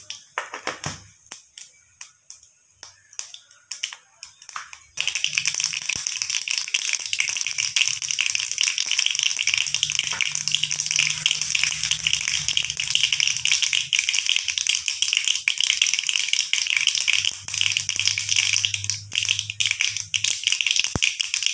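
Seeds frying in hot sesame oil in an aluminium kadai: scattered pops for the first few seconds, then from about five seconds in a dense, continuous crackle and sizzle as the oil gets hot enough.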